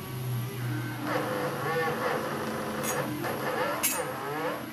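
NEMA 34 stepper motors on a TB6560 driver running a G-code job, their whine sweeping up and down in pitch as the axes speed up and slow down. A low steady hum comes first, and two sharp clicks come near the end.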